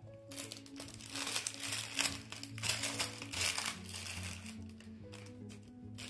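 Small clear plastic bag crinkling and rustling for about four seconds, then stopping, over background music.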